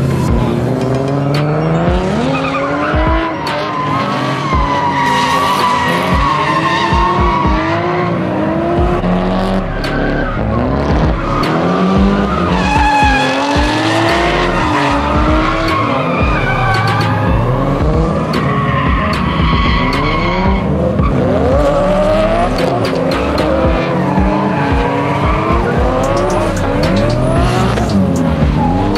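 Nissan drift cars sliding through corners one after another: engines revving up and down in long rising and falling sweeps, with tires squealing and skidding.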